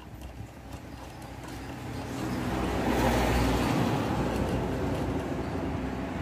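A motor vehicle running close by, a low rumble with a rushing noise that grows louder from about two seconds in and stays up. Faint clicks of metal bolts being handled are heard near the start.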